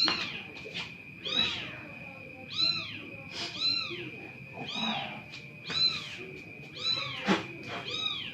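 A cat, likely a kitten, meowing over and over in short, arching cries, about one or two a second. A steady high-pitched whine runs underneath.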